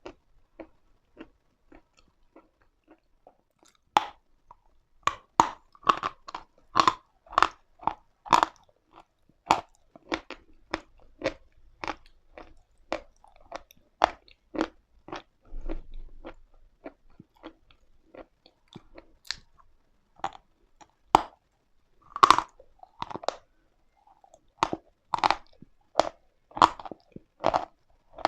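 Close-miked chewing of chalk: crisp, dry crunches several times a second. They start about four seconds in after a few faint ticks, thin out for a few seconds past the middle, then pick up again.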